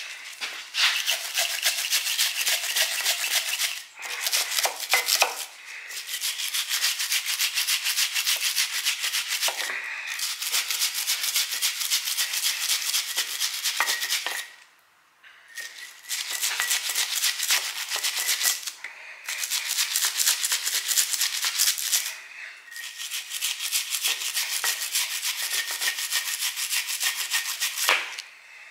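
Steel wire brush scrubbed fast back and forth over the valve heads in the block of a 1946 Ford flathead V8, cleaning the valve tops. It is a dry, rasping scratch in long runs broken by short pauses, the longest about halfway through.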